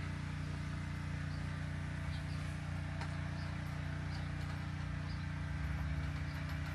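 Steady low hum with a few faint light clicks and taps, as the front axle screw, washers and safety hook are fitted to the e-bike's fork by hand.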